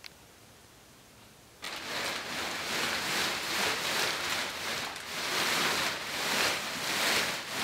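Clear 3-mil plastic sheeting rustling and crinkling as the paint booth's plastic walls drop down from the ceiling. It starts suddenly about a second and a half in and swells and fades in waves.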